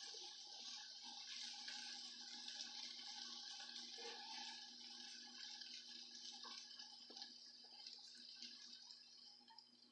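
Faint hiss of running water, slowly fading away.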